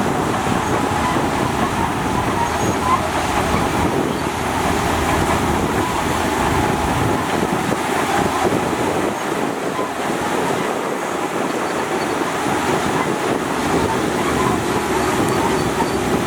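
Heavy earthmoving machinery at work: a diesel engine running steadily under load, with no clear changes.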